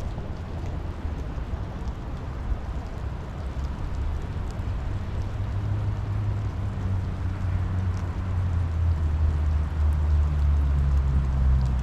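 Rain falling steadily, with scattered drop ticks. Under it a low motor hum grows louder through the second half.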